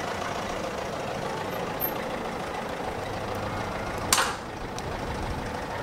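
Steady hum of road traffic and vehicles, with a short hiss about four seconds in.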